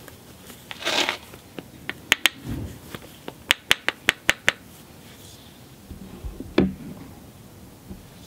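A copper-tipped billet working the edge of a cherty mudstone biface held on a leather pad: a brief scraping rub about a second in, then a run of sharp light clicks of copper on stone, about eight in two and a half seconds, and one duller knock later on.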